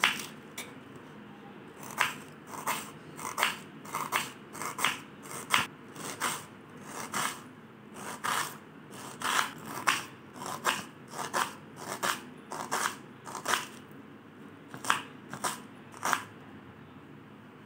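Kitchen knife chopping a red onion on a wooden chopping board: a crisp cut and tap on the board about twice a second, with a brief pause near the end before the chopping stops.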